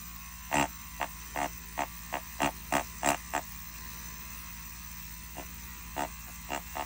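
Mast Archer rotary tattoo pen fitted with a ballpoint pen cartridge, buzzing against paper in short dabs as it makes dots. There are about nine quick dabs, a pause of a couple of seconds, then several more near the end, over a steady low hum.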